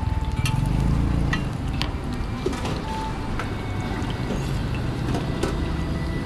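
Roti frying in oil on a flat metal griddle, a steady sizzle, with a few sharp metal clinks of a spatula against the pan. A low steady rumble runs underneath.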